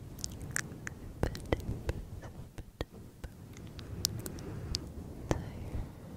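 Fingers rubbing and scratching a fluffy furry microphone windscreen close up: a soft low rumble with many scattered crackles and clicks.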